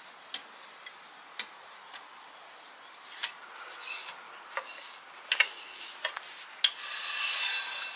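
Light metallic clicks and knocks of a wrench working the wheel nuts as a rear road wheel is bolted back on, spaced irregularly about half a second to a second apart. A short scraping noise comes near the end.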